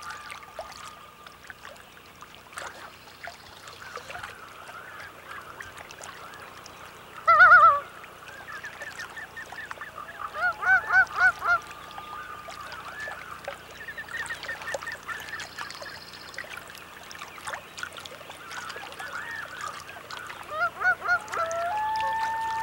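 Common loons calling over open water: a single short, loud call about seven seconds in, then runs of quick repeated notes twice, and a long held note near the end.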